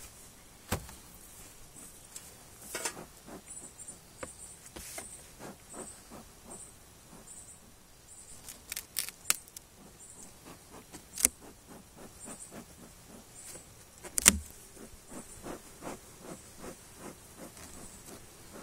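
Handling of a wooden beehive: scattered knocks and clicks as the inner cover is worked loose and lifted off the frames, with one sharp knock about two-thirds through that is the loudest. Faint high chirps repeat in the background during the first half.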